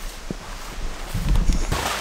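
Close rustling and low thumping from movement right by the microphone, loudest about a second and a half in, over a steady hiss of rain.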